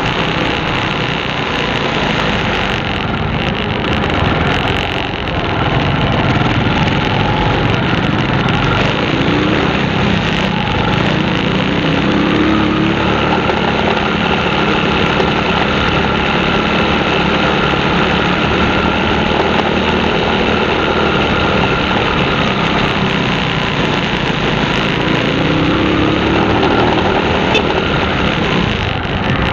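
A vehicle engine running steadily, its pitch rising briefly a few times as it picks up revs.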